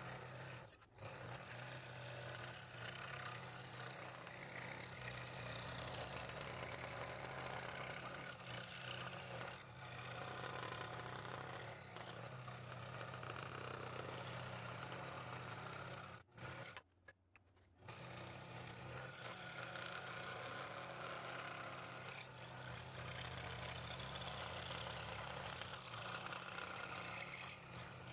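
Scroll saw running with a steady hum, its fine number 5 blade cutting through a wooden blank. The sound breaks off briefly twice.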